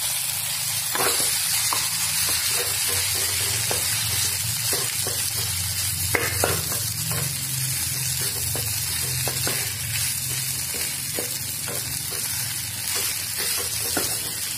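Boiled rice frying and sizzling in a kadhai while a spatula stirs it into fried potatoes and cauliflower, with irregular scrapes and taps of the spatula against the pan over a steady hiss.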